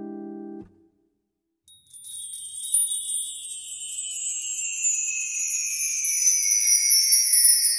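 Intro sound effects: a low held note fades and cuts off, then after about a second of silence a bright shimmering chime sound starts, its high tones sliding slowly downward.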